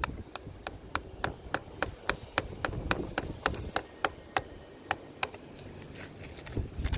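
Quick, steady hammer strikes on a roof, about three a second, some with a faint metallic ring, while work goes on to remove an old shingle around a pipe boot; the strikes stop a little after five seconds in.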